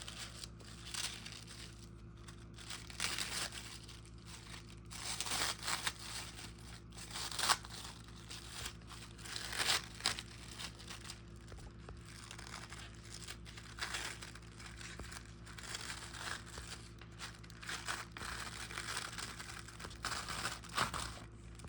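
Plastic cling wrap and paper being handled, crinkling and rustling in irregular bursts, over a faint steady hum.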